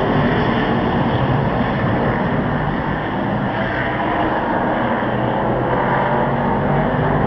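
V8 stock car engines running at race pace on the circuit out of sight. The engine drone eases off a little a few seconds in and builds again near the end.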